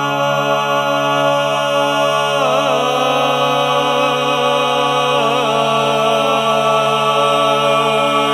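Layered harmony singing: several voices hold a sustained chord with long, steady notes. The upper voices move to new notes about two and a half seconds in and again about five seconds in.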